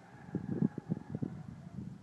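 Distant RC speedboat's brushless electric motor making a faint thin whine as the boat runs flat out across the lake. Irregular low rumbling buffets on the microphone are louder than the whine.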